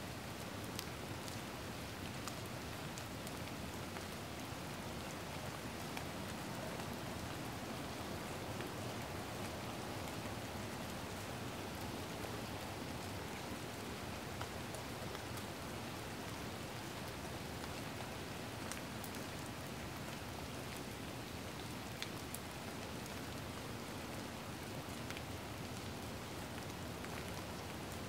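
Steady, even rain-like hiss with scattered faint ticks, like drops landing.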